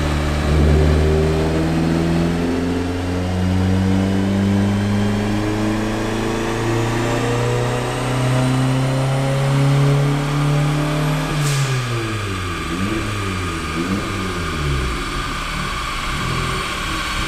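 Big-turbo VW 1.8T 20-valve four-cylinder making a full-throttle dyno pull, its revs climbing steadily for about eleven seconds with a faint rising turbo whistle. Then a sharp crack as the throttle is lifted, and the revs fall away, dipping and rising a few times.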